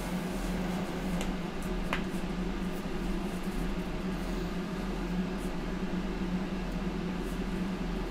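Steady low hum with an even hiss, like a running fan or appliance in a small room, and two faint clicks about one and two seconds in.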